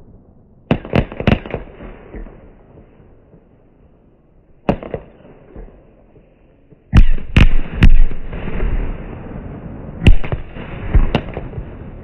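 Consumer fireworks battery firing at night: sharp bangs from shells launching and bursting overhead, in clusters of three about a second in, one near five seconds, three louder ones around seven to eight seconds and two more near the end. Each bang is followed by a rolling echo and crackle.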